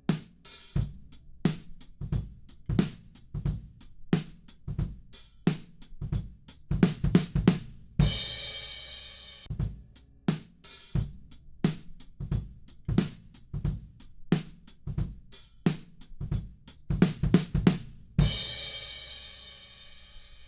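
Drum kit recording playing back: a steady groove of kick, snare and hi-hat, broken twice by a quick fill on the toms, each fill ending on a crash cymbal that rings and fades.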